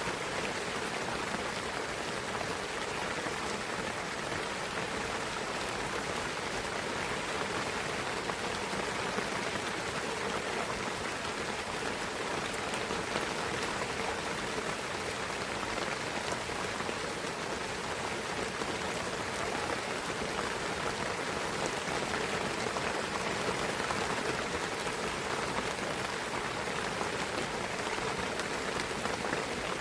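Steady rain falling in a pine forest, an even patter of drops on the trees and ground with fine scattered drip ticks throughout.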